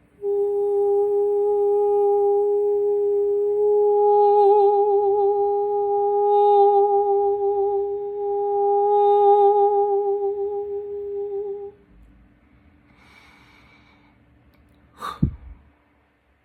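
A woman humming one long, steady, mid-pitched note for about eleven seconds, wavering slightly now and then. It ends abruptly, followed by a soft breath and a single sharp knock near the end.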